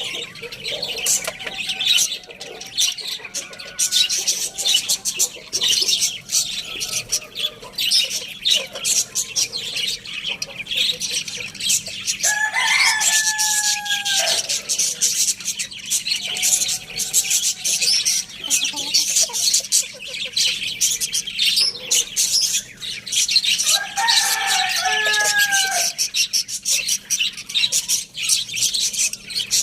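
Roosters crowing: two loud crows of about two seconds each, roughly a third and four-fifths of the way through, with fainter crows in between. Constant dense chirping of many small birds runs underneath.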